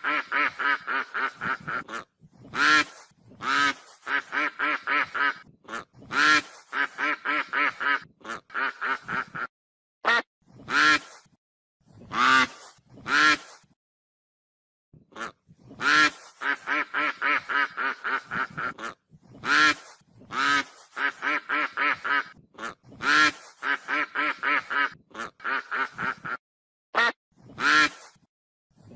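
Goose honking: loud single honks, each followed by a run of rapid shorter calls at about four or five a second, with a brief pause about halfway through.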